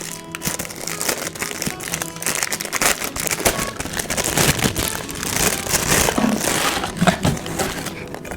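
Packaging crinkling and rustling as it is handled, in quick irregular crackles, over soft background music.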